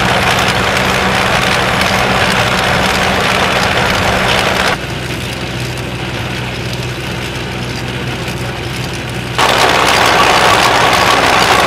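Wheeled tractor's engine running steadily while its mounted ice saw cuts a slot through river ice and snow, a dense grinding noise over the engine's low drone. The sound drops in level about five seconds in and comes back louder a little after nine seconds.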